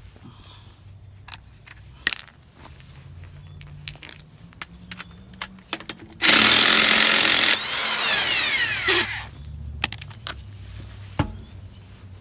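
Scattered clicks and knocks, then about six seconds in a power tool runs loudly for a second and a half and winds down with a falling whine.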